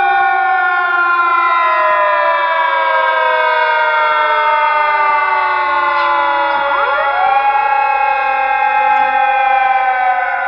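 Loud siren wailing. A tone with many overtones falls slowly in pitch, and about six and a half seconds in a second siren tone sweeps sharply up and holds while the first keeps falling.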